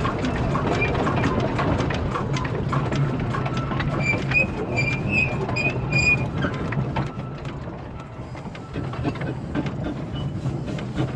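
Narrow-gauge Bagnall steam locomotive running, heard from its footplate: a steady low rumble with rattling and clicking from the engine and wheels on the track. A run of short high squeaks comes about four to six seconds in, and the running gets somewhat quieter from about seven seconds in.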